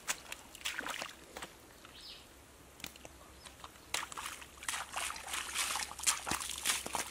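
Bare feet squelching and sloshing through soft wet mud and shallow muddy water, in irregular clusters of steps; it goes quieter for a couple of seconds in the middle, then picks up again.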